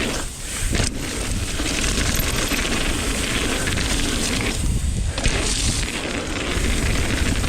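Mountain bike descending a trail: wind rushing over the microphone, with tyre noise and fast rattling from the bike over rough ground.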